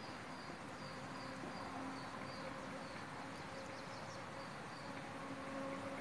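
Faint outdoor ambience: a steady hiss with insects, a low hum that comes and goes and a thin, high chirp repeated at short intervals through most of the stretch.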